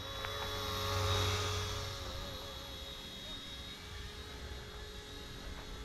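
Electric RC helicopter (RTR 206 JetRanger) in flight: a steady whine of its motor and rotor, swelling about a second in and then easing off.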